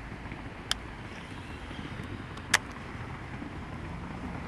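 Steady low rumble of distant road traffic, with two sharp clicks, the second one louder.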